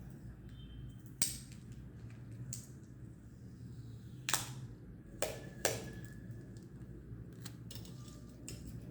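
Sticky tape being handled: pulled from the roll, torn and pressed down. There are four sharp crackling snaps, one about a second in and three close together a little past the middle, over a low steady hum.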